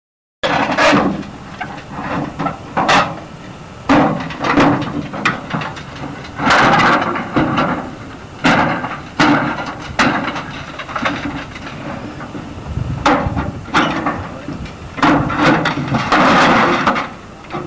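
Corrugated tin sheets and old timber banging, clattering and scraping as they are pulled and knocked about, in a dozen or so irregular knocks, some with a short metallic ring.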